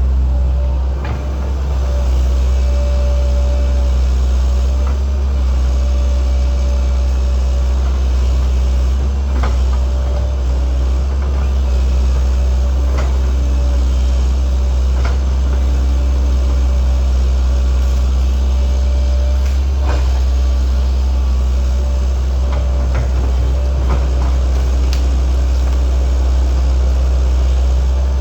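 Link-Belt 2700 excavator running steadily, its engine a constant low drone with a mid-pitched whine that comes and goes as it works. Scattered sharp knocks and clanks, a few seconds apart, break in over it.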